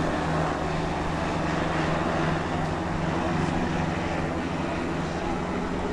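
A steady engine drone with a low hum that holds an even pitch.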